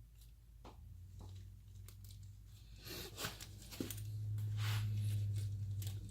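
Crinkling and rustling of small parts' packaging, with light clicks as the copper sealing washers and fittings are handled, over a low hum that grows louder in the second half.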